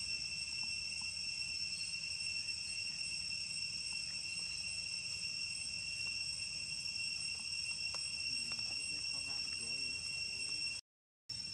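Steady chorus of insects, a continuous high-pitched shrill drone that holds unchanged, cutting out completely for about half a second near the end.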